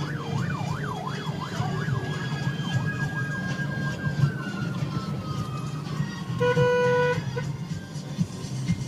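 Emergency vehicle siren in yelp mode, sweeping quickly up and down, then changing to a long wail that slowly falls in pitch. A vehicle horn sounds once for about half a second, the loudest sound, about six and a half seconds in, over the steady low hum of traffic heard from inside a moving car.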